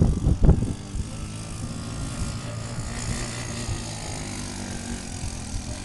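Off-road vehicle engine running steadily at a distance, a low even hum. A few loud low thumps come right at the start.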